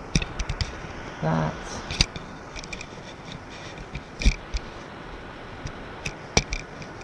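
Handling noise from a hand-held camera being moved and gripped: scattered knocks, clicks and rubbing, with sharper knocks about two, four and six seconds in.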